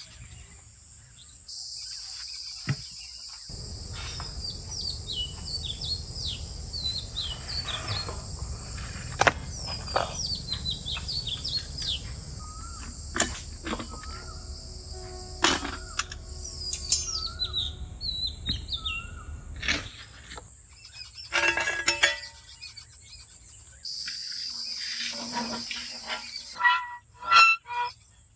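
Birds chirping over a steady insect drone, with scattered knocks and clinks of metal cookware being handled at a clay oven; a few louder metallic knocks come near the end.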